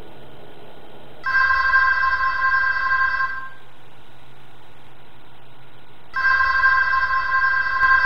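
Landline telephone ringing twice, each ring a steady multi-tone sound about two seconds long, about five seconds apart.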